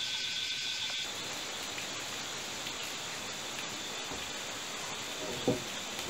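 Forest insects droning steadily and high, with a thin steady tone that stops abruptly about a second in, leaving an even hiss. A single short knock comes about five and a half seconds in.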